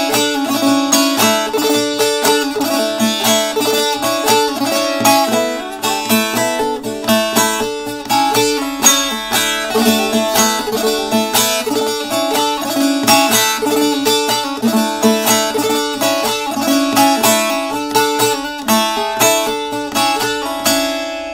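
Short-neck bağlama (kısa sap saz) played with the bare fingers in şelpe style: a saz folk melody on sustained ringing strings, broken by rapid finger-strum flourishes (tarama) and plain strikes.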